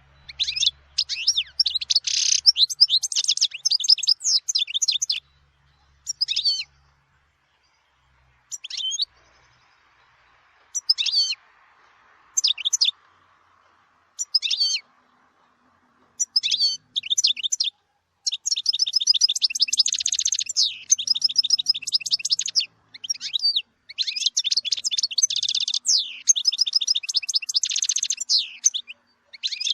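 European goldfinch singing: bursts of rapid, high twittering song separated by pauses, with a few short single phrases in the middle and a long, nearly unbroken run of song in the last third.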